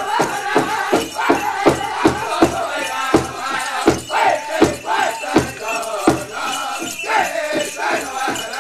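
Powwow drum group playing for a Men's Traditional dance: a big drum struck in a steady beat under high-pitched singing, with pitches that slide up and down.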